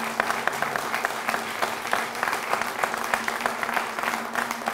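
Applause from a small crowd: many hands clapping in a dense, steady patter, easing a little near the end, with a faint steady hum underneath.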